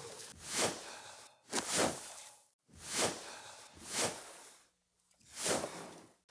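A series of whoosh sound effects for animated body movements, six swishes spaced about a second apart.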